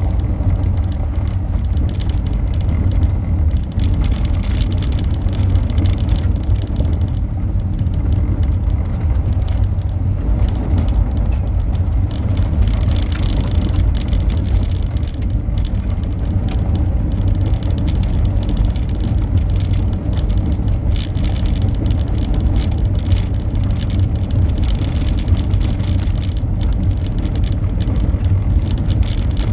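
Car driving on a gravel road, heard from inside the cabin: a steady low rumble of engine and tyres on loose gravel, with scattered small clicks and rattles.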